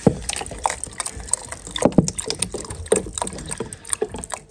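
Water being poured into an egg incubator's water tray, with irregular splashes and small knocks; it is topped up because the tray ran dry and the humidity inside fell.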